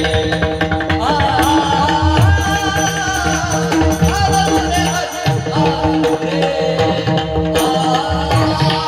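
Marathi devotional bhajan music: hand drums playing a steady rhythm under a held drone and a wavering melody line.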